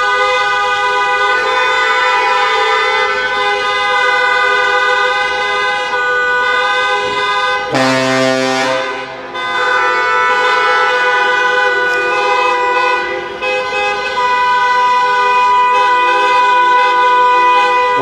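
Traffic jam: many car horns honking at once and overlapping without a break. A deeper horn joins about eight seconds in, and the sound briefly dips about a second later.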